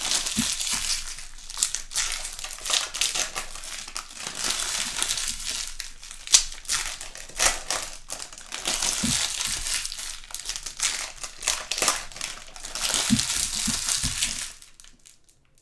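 Trading-card pack wrappers crinkling as packs are opened and handled, with a few soft knocks; it stops about a second before the end.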